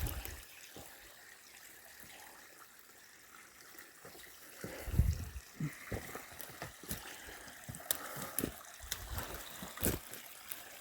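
Water trickling as it drains out of an abandoned mine. From about halfway there are scattered clicks and a few low thumps above it.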